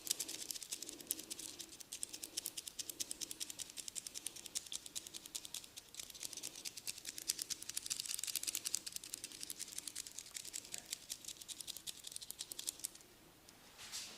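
Fast, crisp crackling and tapping of a barber's hands working over a client's head and hair during a head massage, about ten clicks a second. It stops abruptly near the end.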